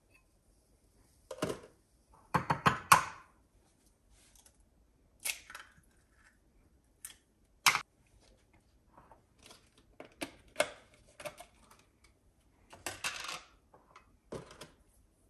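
Irregular clicks, taps and light clatters of small hard objects being handled, with quiet gaps between; the loudest cluster is a few seconds in.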